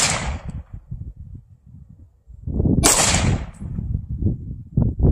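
AR-15 rifle firing two single shots, one right at the start and a second about three seconds later, each a sharp crack with a short fading tail.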